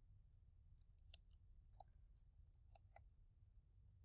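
Faint, scattered clicks of a computer mouse, a handful of single clicks at irregular spacing over near-silent room tone.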